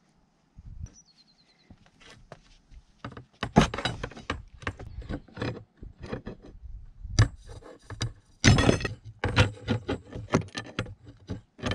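Two pairs of adjustable pliers clicking, scraping and clattering against the brass nut and body of a compression fitting on 15 mm pipe as the nut is tightened to squash the olive. The sound comes as a quick run of sharp metallic clicks and knocks that starts a few seconds in.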